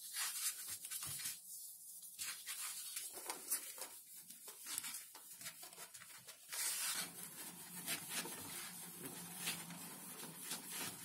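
Sheet of Depron XPS foam rubbing and crackling as it is rolled and bent by hand over a plastic pipe to curve it, with a denser stretch of scraping a little past the middle.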